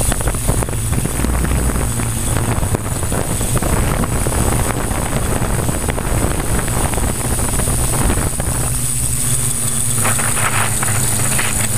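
Multirotor's electric motors spinning 15x5.5 propellers in flight, heard from an onboard camera: a steady drone with a high whine, with wind buffeting the microphone.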